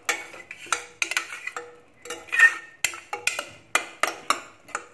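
Steel spoon stirring thick masala paste in a stainless steel pressure cooker, clinking and scraping against the pot's metal sides in quick irregular strokes, about three clinks a second.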